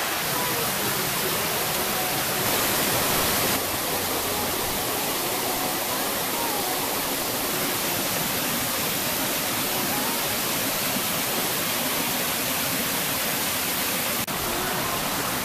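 Rain-swollen forest stream rushing and splashing over rocks in a steady rush of water. The sound shifts abruptly about four seconds in and again near the end.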